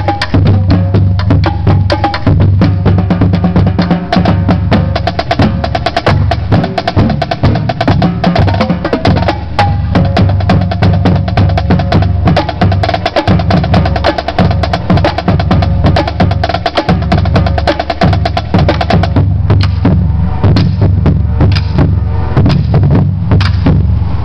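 Marching drumline playing a loud, fast cadence: dense snare and tenor strokes with sharp wooden clicks, over booming bass drums.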